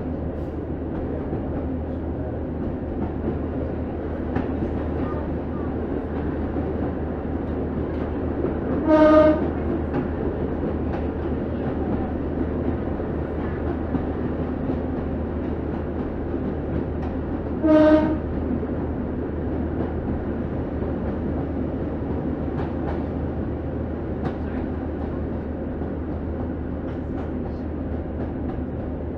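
Diesel train running along the line, a steady rumble with occasional faint clicks from the rails. The horn sounds twice, two short blasts about nine seconds apart.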